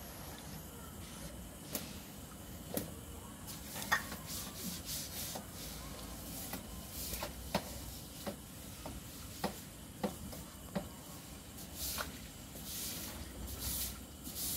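A broom scrubbing wet floor tiles: scattered knocks and scrapes, with the bristles' swishing strokes coming more often near the end.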